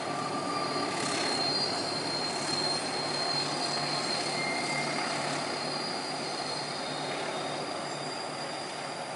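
A distant diesel-hauled passenger train running past: a steady rumble of locomotive and carriages with a thin, high, continuous wheel squeal over it.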